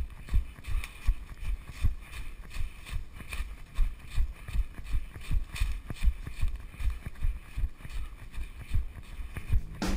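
Running footsteps on leaf-covered forest ground, heard as a steady rhythm of dull thumps at about three a second through a body-worn camera.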